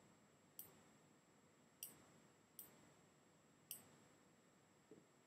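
Faint computer mouse clicks: four sharp clicks spread about a second apart, then a softer, duller tap near the end.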